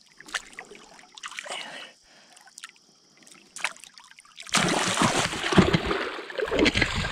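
Light trickling and small splashes in shallow river water, then about four and a half seconds in a sudden, loud, continuous splashing as a hooked flathead catfish thrashes at the surface beside the angler's legs while he reaches to land it.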